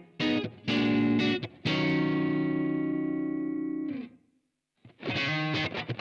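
Electric guitar played through a Blackstar AMPED 2 pedal power amp set to its EL84 valve response: a few short, choppy chords, then one chord held for about two seconds and cut off, a brief silence, and fast riffing picking up again near the end.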